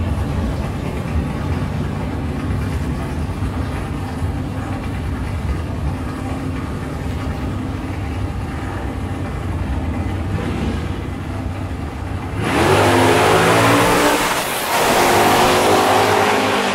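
Drag-racing cars' engines idling with a steady low rumble at the starting line, then launching about twelve seconds in: a sudden loud burst of hard acceleration with rising engine pitch, dipping briefly and rising again as they run down the strip.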